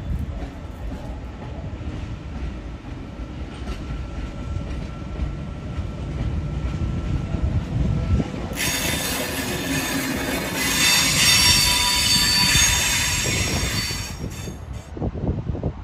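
Comeng V set double-deck electric train running with a low rumble. About eight seconds in a loud, high-pitched metallic squeal from the wheels starts, holds for about six seconds and cuts off suddenly.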